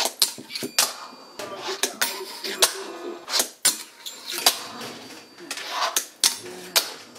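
Fingerboard being played on a metal rail on a hard tabletop: an irregular run of sharp clacks as the deck pops, hits the rail and lands, with short rolling and grinding sounds from the trucks and wheels between them.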